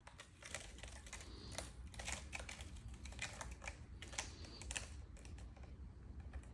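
A kitten's claws scratching and catching on the sisal rope of a cat scratching post as it clings and climbs: a rapid, irregular series of scratchy clicks.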